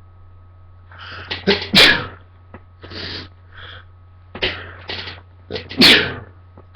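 A person sneezing twice, about four seconds apart. Each sneeze is preceded by a few short, catching build-up breaths, and each bursts out loud and sudden.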